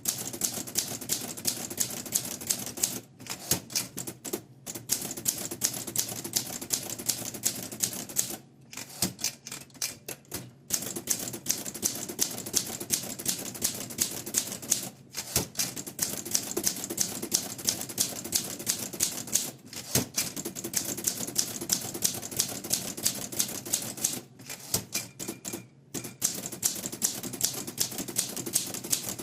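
1960 Olympia SM4 manual typewriter being typed on: fast, continuous runs of key strikes, with brief pauses every few seconds.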